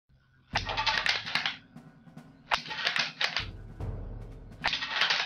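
Sharp clicks and snaps from a wooden bolt-action rubber band gun firing rubber bands at small wooden block targets, over background music with a regular beat that swells about every two seconds.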